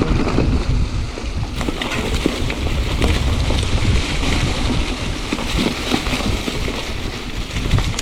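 Mountain bike riding over a wet trail: tyres rolling on wet ground, with scattered knocks from the bike. Under it runs a steady low rumble of wind buffeting the microphone.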